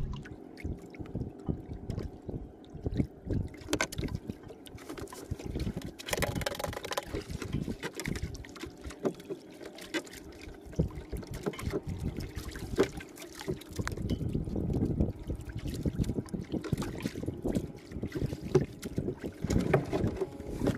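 Water splashing and trickling around a small fishing boat, with irregular knocks and clatter on the hull as the boat is moved to a new spot.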